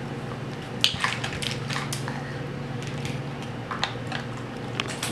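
Plastic pieces of a Plumber Pants toy game clicking and clattering as they are handled, a handful of separate sharp taps over a low steady hum.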